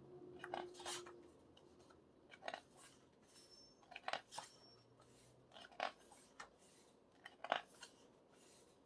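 Pages of an album photobook being turned and handled: a scattered series of short, faint paper rustles and brushes.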